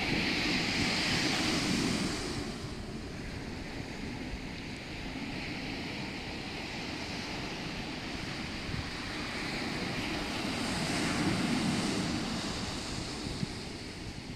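Ocean waves breaking and washing up the shore, with two swells: one in the first two seconds, then a quieter stretch, then another around eleven seconds in.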